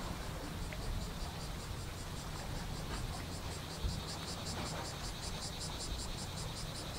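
Rhythmic high-pitched chirping like an insect's, about four even pulses a second, growing stronger from about two seconds in, over a steady low rumble.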